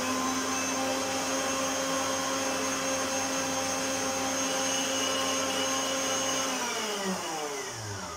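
Electric stand mixer running at a steady speed with a motor whine, beating a liquid mix of milk, yeast, oil, water and egg. About six and a half seconds in it is switched off, and the whine falls in pitch as the motor spins down.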